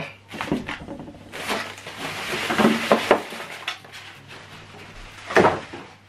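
Handling noise from lifting a small rear loudspeaker out of polystyrene foam packaging: rustling and scraping with scattered knocks, and one louder knock near the end as it is set down on the table.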